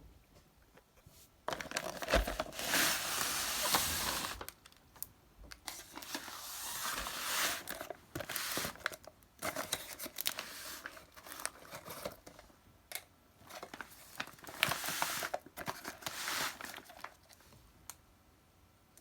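Plastic or cardboard packaging being crinkled and handled in several bursts of a couple of seconds each, with small clicks and rustles between them.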